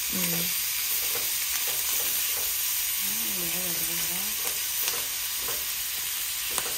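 Pieces of pork sizzling steadily as they are stir-fried in a metal pan on a gas stove. There are a few light clicks of chopsticks against the pan as they are turned.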